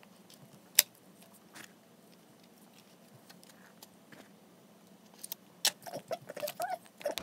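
Hand trowel spreading potting soil in a clear plastic seed box: soft scraping with scattered clicks, a sharp tap about a second in, and a busier run of scrapes and taps in the last two seconds.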